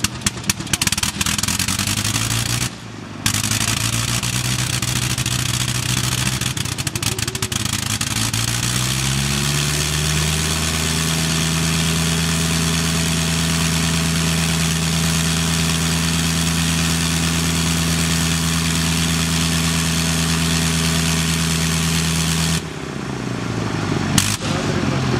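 Avro 504 biplane's engine running on the ground with its propeller turning. It is uneven and crackling at first, with a short drop-out about three seconds in. Then it runs steadily, rises in pitch to higher revs about eight to ten seconds in, holds there, and drops back sharply near the end.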